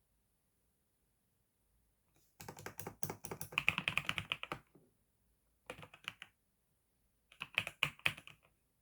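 Typing on a newly bought computer keyboard: three bursts of rapid key clicks starting about two seconds in, the first the longest.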